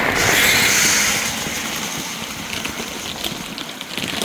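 Chicken feed pouring out of a 50-pound feed bag into a feeder: a steady rushing hiss of pellets, loudest in the first second and then settling lower.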